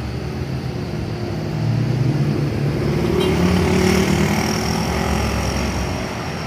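Bus diesel engine pulling up the hill as the bus approaches and passes, growing loudest about four seconds in and then easing off, with a thin high whine in the last two seconds.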